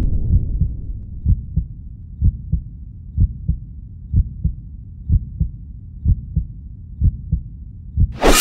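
Slow heartbeat sound effect: paired low thumps (lub-dub) about once a second over a fading low rumble, cut off by a sudden crash at the very end.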